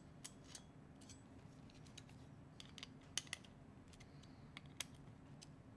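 Faint, irregular metallic clicks and ticks of a screwdriver driving socket head screws through an aluminium channel into an odometry pod mount, with a couple of sharper clicks a little after three seconds and near five seconds in.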